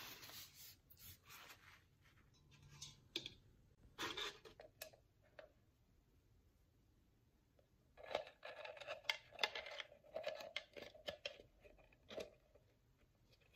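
Faint handling noises: a paper towel rubbing over wax-dipped candle wicks, then scattered light clicks and scrapes, busiest from about eight seconds in, as a glass candle mould is handled in a metal tray.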